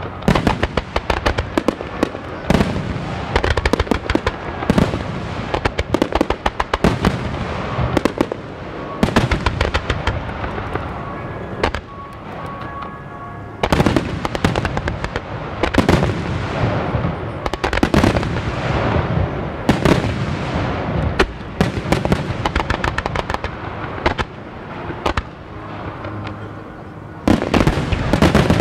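Starmine fireworks finale: rapid volleys of shells launching and bursting overhead, sharp crack after crack over a continuous rumble. The barrage eases off twice and builds to its densest run of bangs near the end.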